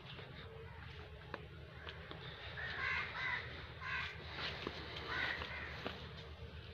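A bird giving a few harsh calls in the middle stretch, over faint clicks and a steady low rumble.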